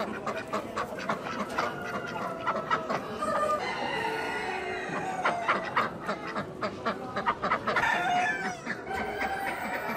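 Many hens clucking and roosters crowing at once, a continuous overlapping din of caged poultry.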